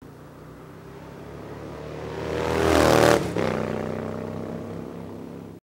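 A motorcycle passing by at speed: the engine grows louder to a peak about three seconds in, drops in pitch as it goes past and fades away, then cuts off abruptly near the end.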